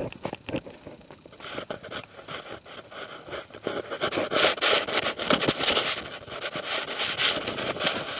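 Digging and scraping through loose garden soil: a few sharp knocks at the start, then continuous scratching that grows louder about four seconds in.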